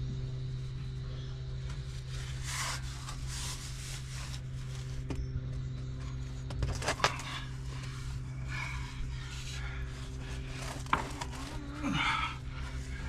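Scraping and rubbing sounds with a few sharp knocks, over a steady low hum.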